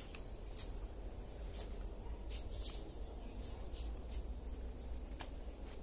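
Faint outdoor background: a steady low rumble with short, sharp high-pitched ticks or chirps scattered irregularly through it.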